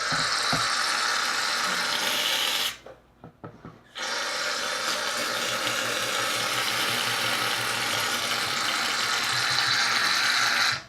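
Aerosol can of shaving foam spraying in two long, really loud hisses. The first lasts about three seconds and the second, after a short break, about seven.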